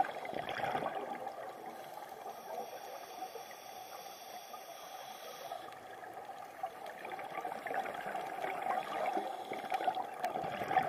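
Underwater water noise heard through a camera housing: a gurgling, bubbling wash, louder in the first second and again over the last few seconds, quieter in between.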